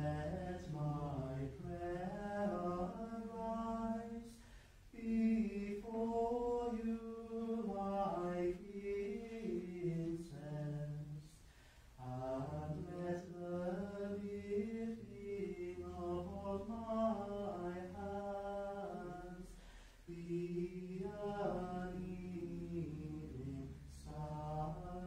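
Unaccompanied liturgical chant, sung in long phrases with short pauses between them.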